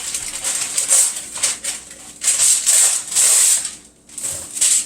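Parchment paper rustling and crinkling in irregular bursts as it is handled, with a brief lull near the end.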